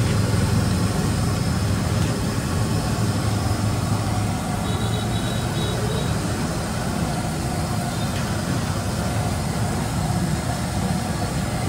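Steady low rumble and hiss of a busy street-food stall, with faint voices. A faint high-pitched tone sounds for about three seconds near the middle.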